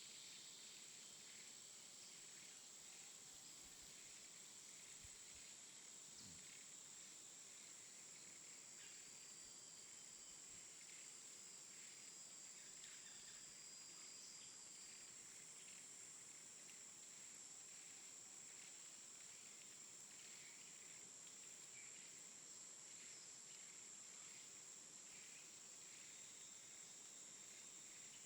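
Near silence: a faint, steady high-pitched tone over a low hiss.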